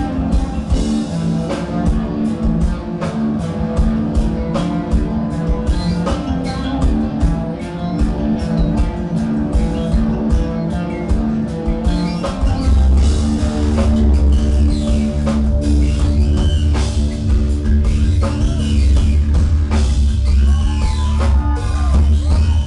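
A live rock band playing loudly, with a drum kit and electric guitar. About halfway through, heavy bass comes in and the full band plays louder.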